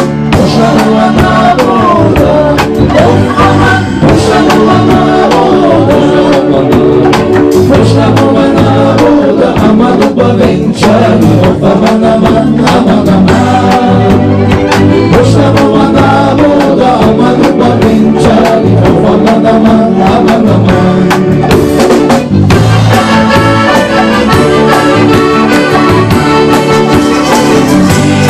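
A Turkish ensemble playing an instrumental passage: violins and oud with other plucked strings over drum kit and percussion, loud and continuous.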